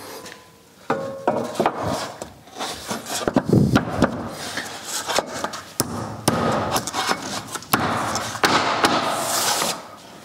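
Plasterboard sheet being pushed and pressed onto the glued wall: a run of irregular knocks and rubbing scrapes of the board against the wall.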